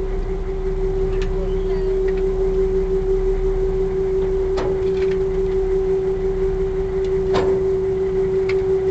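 Small ferry's engine running steadily while the ferry lies at the landing ramp: a constant hum at one pitch over a low rumble. Several short clanks and clicks, the two loudest about halfway through and near the end, come as bicycles are wheeled aboard.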